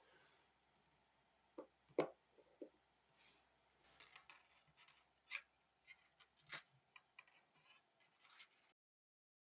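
Small metal watchmaker's tools clicking and scraping against the parts of a Zenith 2562PC automatic watch movement as it is taken apart: scattered faint, sharp clicks and light scrapes, a few louder than the rest. The sound cuts off suddenly near the end.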